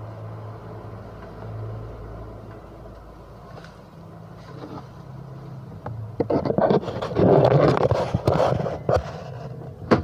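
A low steady hum, then from about six seconds in loud, uneven scraping and rubbing from hands working close to the microphone.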